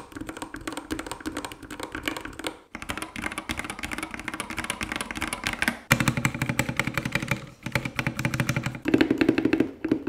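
Typing sound test on the Akko 3068B Plus and Yunzii YZ68 65% mechanical keyboards: a fast, steady clatter of keystrokes. It cuts abruptly between takes about three and six seconds in.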